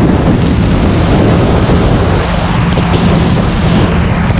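Wind rushing over the microphone on a moving motorcycle at cruising speed, with the TVS Apache RR310's single-cylinder engine running steadily underneath.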